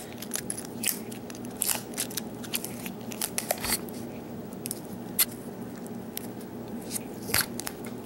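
Vinyl electrical tape being peeled and pulled off a key and fingers: irregular crackles and sharp little clicks, thickest in the first couple of seconds, then sparser.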